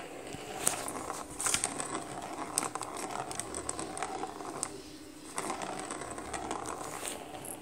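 A Maine Coon kitten batting at a cat scratcher toy: the ball rattles around the plastic track, with scrapes and taps of claws on the cardboard and plastic, in two bouts with a short lull a little past halfway.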